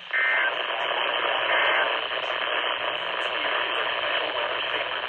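Radio receiver static: a steady, loud hiss between transmissions. A short high beep sounds at the start and a fainter one about a second and a half in.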